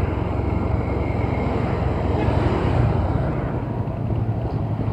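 Steady rumble of a motorcycle being ridden, its engine mixed with wind buffeting on the microphone.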